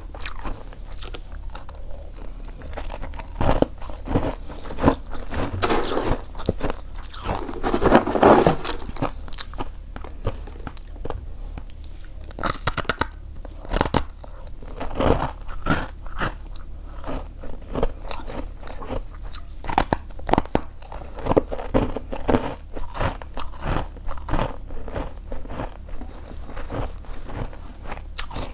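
Close-miked crunching of freezer frost as it is bitten and chewed, in many irregular crisp crunches.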